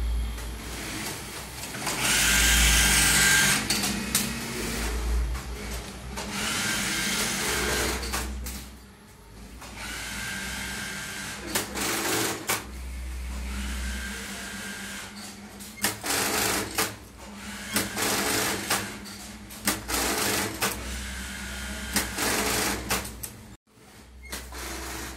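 Industrial sewing machines running in repeated bursts of a second or two each, with sharp clicks between the runs and a steady hum underneath.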